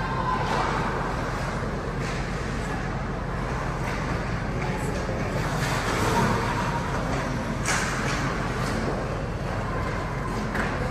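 Ice hockey game ambience in a rink: a steady arena hum with skate blades scraping the ice and a few sharper scrapes or knocks from play.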